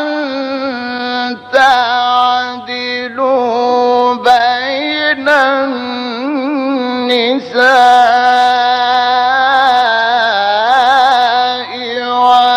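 Quran recitation in a slow, melodic tajweed style: a single voice holding long, ornamented notes, with short breaks between phrases.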